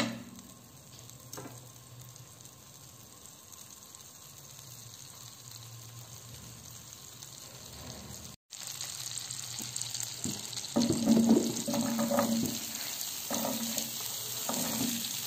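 Butter melting and sizzling in a nonstick frying pan on medium heat, quiet at first and louder after about eight seconds. Near the end, pieces of sliced zucchini drop from a wooden board into the pan with several soft knocks over the sizzle.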